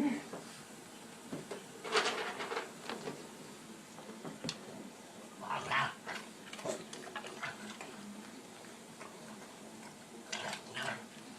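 A dog making a few brief, quiet vocal sounds, in three short spells spread out over several seconds, with faint room noise between.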